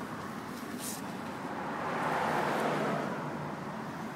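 Road traffic noise: a passing car's tyre and engine noise swells about two seconds in and fades again over a steady background hum of traffic.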